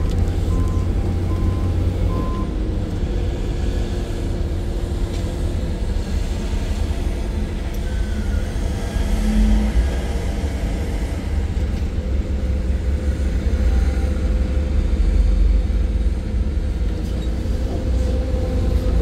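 Hydraulic excavator's diesel engine running steadily under working load, a deep, continuous rumble. A reversing alarm beeps a few times in the first couple of seconds.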